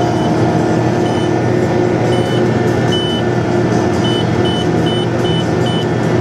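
Case IH Quadtrac 580 tractor's engine running steadily under load, heard from inside the cab while it pulls a cultivator through the field. Short high electronic beeps sound over it, a few spaced about a second apart, then five in quick succession about 0.4 s apart near the end.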